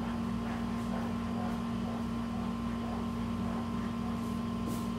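Steady machine hum with a constant low tone, plus a couple of faint short rasps near the end.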